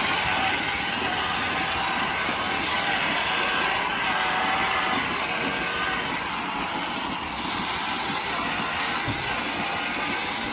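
Steady machinery noise with a faint hum.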